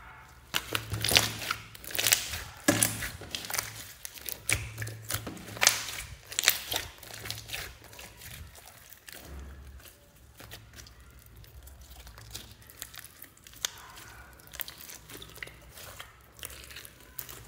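Hands kneading and squeezing a large mass of glitter slime: a dense run of sticky crackling and popping clicks, loudest in the first half and softer after about eight seconds.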